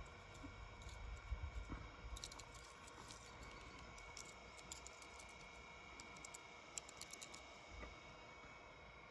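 Near silence, with a faint steady high tone and scattered light clicks, a quick run of them about seven seconds in.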